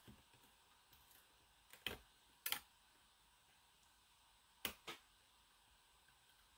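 A few faint, sharp clicks of metal lock picks working in a Schlage LFIC lock core: two close together about two seconds in and two more near five seconds, with near silence between.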